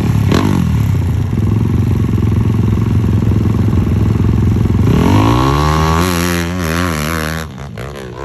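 Hillclimb motorcycle engine running hard at high, steady revs; about five seconds in the revs drop, then rise and fall unevenly with the throttle.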